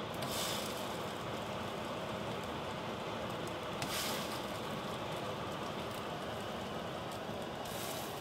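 Pancakes sizzling steadily in a hot oiled pan, with three brief louder sizzles as pancakes are flipped over onto their raw side.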